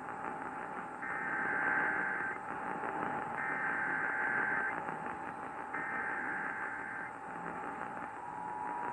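Emergency Alert System SAME header heard over radio: three bursts of digital data tones, each a little over a second long, about a second apart. Static hiss and a steady whistle-like tone run underneath, and a second tone joins near the end.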